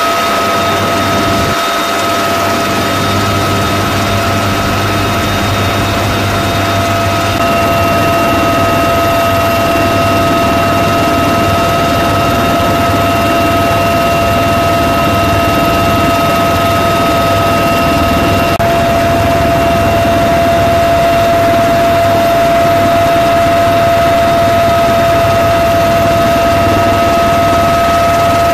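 Twin turbine engines and rotor of a UH-1Y Venom helicopter heard inside its open-door cabin: a loud, steady high turbine whine over a low rotor drone, with a second, higher whine tone joining about seven seconds in.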